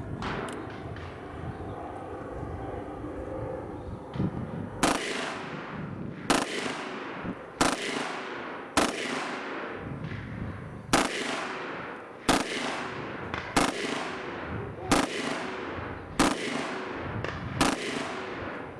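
M16A1 5.56 mm rifle fired one shot at a time. About ten separate cracks begin about five seconds in, roughly one every 1.3 seconds, and each trails off in an echo.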